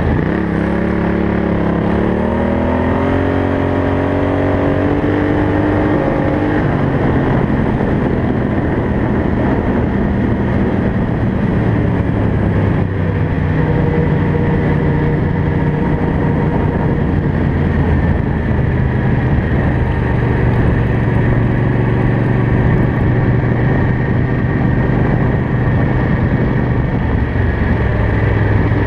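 Racing ride-on lawn mower's engine at full throttle, its pitch rising for the first several seconds as it speeds up out of a turn, then running steadily at high revs.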